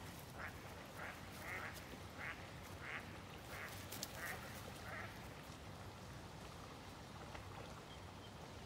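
A duck quacking repeatedly, about eight short quacks over the first five seconds, then stopping.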